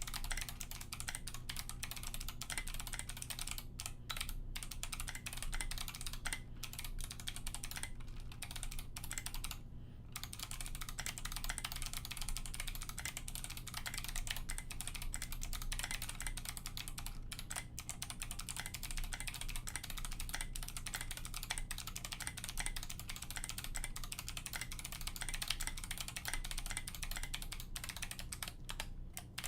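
Continuous typing on a custom KBD66 mechanical keyboard with Kailh Box Navy clicky switches in a brass plate and SA-profile keycaps: a dense run of sharp key clicks, broken by a few short pauses.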